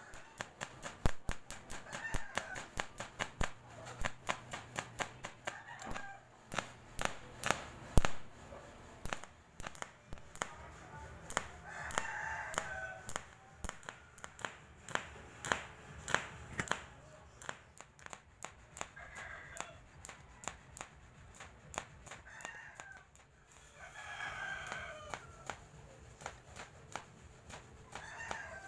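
Welding on a stainless-steel table: a run of sharp, irregular crackling clicks. Over it a rooster crows again and again, each crow about a second long.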